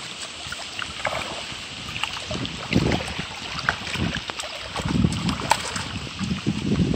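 A hooked fish splashing at the water's surface as it is pulled in and lifted out of the water, with the splashing heaviest in the second half. Wind rumbles on the microphone throughout.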